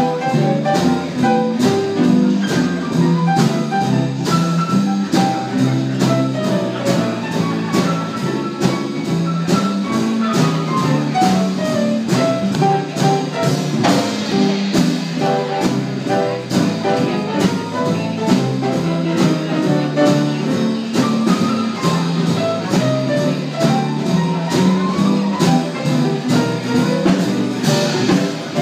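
Small trad jazz band playing an instrumental chorus live: horn lines over guitar, upright bass and a steady beat.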